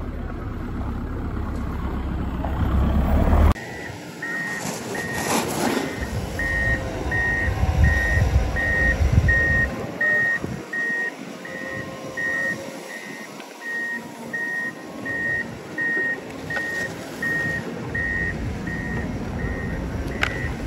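Reversing alarm of a tracked snow groomer beeping steadily at one high pitch, nearly two beeps a second, over its low engine hum. The beeping starts suddenly about three and a half seconds in, after a low rumble.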